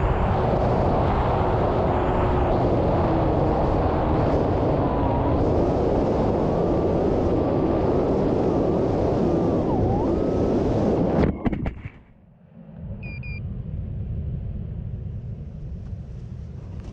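Air rushing past an AR Wing Pro FPV plane in flight, with the electric motor's whine wandering up and down in pitch. About eleven seconds in there are a few sharp knocks, and the rush cuts off to light wind on the microphone.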